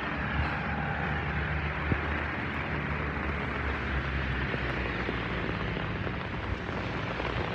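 Steady hiss of heavy rain falling on pavement and hedges, with a continuous low rumble underneath.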